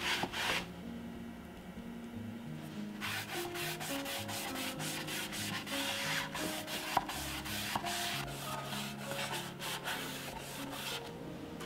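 A cloth rubbing briefly over bamboo wood, then, after a short pause, a foam brush stroking oil onto the bamboo in quick repeated strokes.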